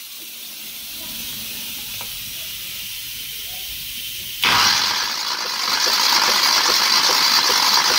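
Hyundai G4FC 1.6-litre four-cylinder engine cranked on its starter with the spark plugs out for a compression test, a steady loud whirring hiss that starts suddenly about halfway through, with faint rapid pulses from the cylinders as the gauge on cylinder one builds pressure.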